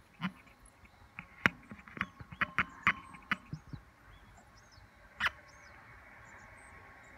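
Irregular sharp clicks and knocks of a phone, zoom lens and welding glass being handled together, clustered between about one and three and a half seconds in, with one more about five seconds in. Faint short high chirps sound in the background.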